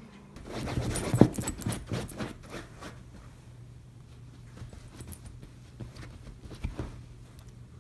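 Small schnauzer moving about and shaking on a sofa: a couple of seconds of quick rustling and clicking with its collar tag jingling, then a few scattered clicks over a low steady hum.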